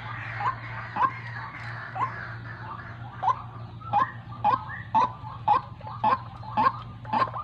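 Female white-breasted waterhen calling: a series of short, sharp notes, a few scattered ones at first, then about two a second from about three seconds in.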